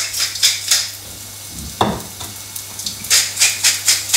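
Hand-turned spice mill grinding seasoning over a frying pan in short twists, about three a second; it pauses around the middle, with a single knock, then grinds again. The nut burger sizzles faintly in the oil beneath.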